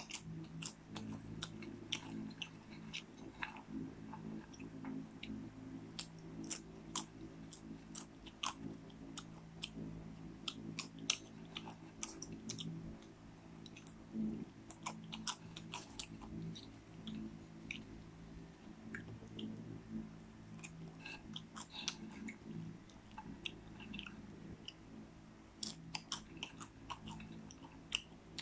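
Cheese-powdered popcorn being chewed close to the microphone: a steady run of irregular crunches and small mouth clicks, over a low steady hum.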